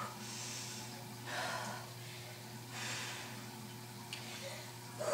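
A woman breathing hard from exertion, with three heavy breaths about a second and a half apart, over a low steady hum. A small click about four seconds in.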